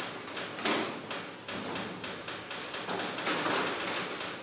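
A cloth rag wiping around the head studs and bolts on a Ferguson TEA20 engine block to clean off excess Loctite: a scuffing rub that swells about a second in and again past three seconds, with many light clicks and taps of metal.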